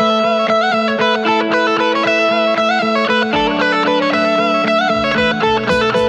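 Les Paul-style electric guitar played through a Marshall amplifier, picking a fast lead line of quick short notes over steady held notes in an instrumental break. Low bass notes come in about halfway through.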